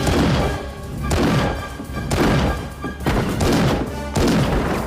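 Film soundtrack with music and about five loud gunshots, spaced roughly a second apart, each with a reverberant tail.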